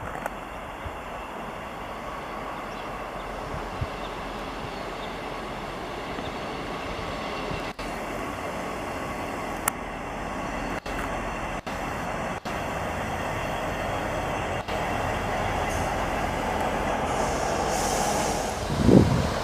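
Diesel-hauled train approaching, its rumble growing steadily louder, with a brief low thump near the end.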